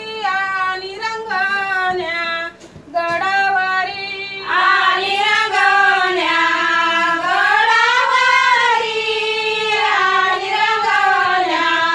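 Group of women singing a Malvani fugadi folk song together, one melody line. The singing dips briefly about two and a half seconds in, then comes back louder and fuller from about four and a half seconds.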